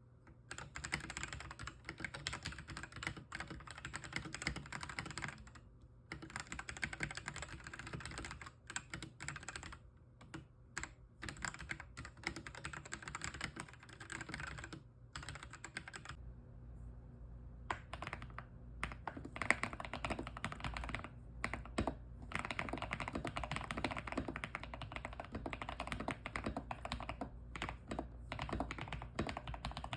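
Newman GM326 75% mechanical keyboard being typed on in a rapid, continuous run of keystroke clacks. The board is heard stock and modded, in two stretches split by a short pause about sixteen seconds in.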